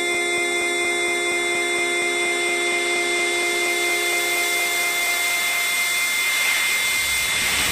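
Electronic dance music build-up: a held synthesizer chord that fades away while a hissing noise sweep swells in its place.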